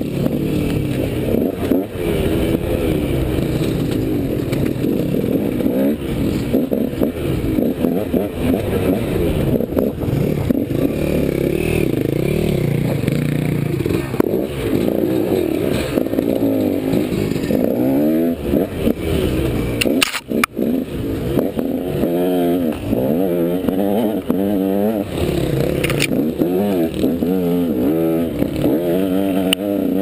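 Dirt bike engine heard from the rider's helmet camera, its pitch rising and falling over and over as the throttle is opened and closed on a rough trail. The engine note drops out briefly about two-thirds of the way through, and there are a few sharp knocks.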